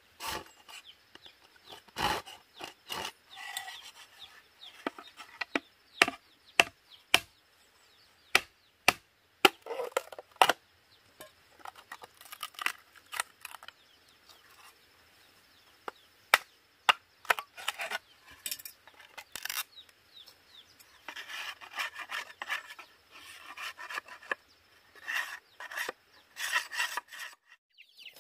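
A hand saw cutting through a dry bamboo tube in rasping strokes, mixed with many sharp knocks of wood on bamboo as the tube is worked with a wooden stick and machete.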